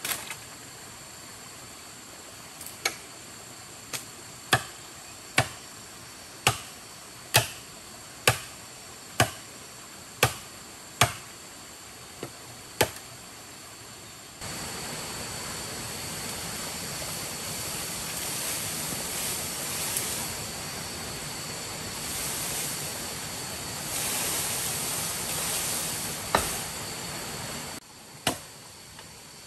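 A machete chopping into a bamboo stalk: about a dozen sharp strikes, roughly one a second. After that a louder steady rushing noise takes over, with two more strikes near the end.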